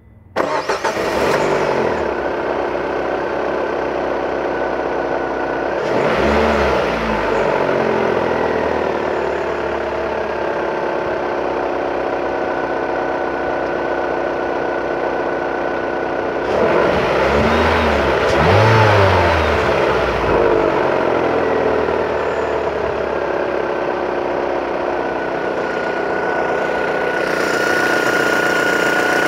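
Car engine starting, then idling with the car stationary and revved twice, each rev rising and falling back to idle, with a thin high whine under it. The owner says a strange noise is clearest as the throttle is released, even with the car stopped.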